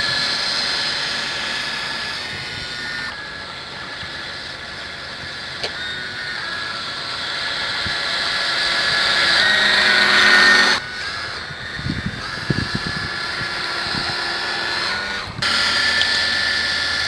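Twin small electric motors of an RC model boat whining as it runs, swelling and easing with the throttle. The whine drops away sharply about eleven seconds in, a few low thumps follow, and it comes back up near the end.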